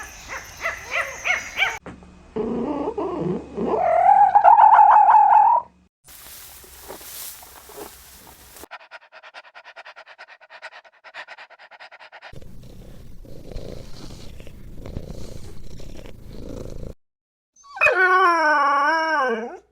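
A run of short animal recordings spliced together, led by a dog: quick yips at the start, a long wavering whine or howl, and near the end another wavering howl, with noisier, clicky stretches in between.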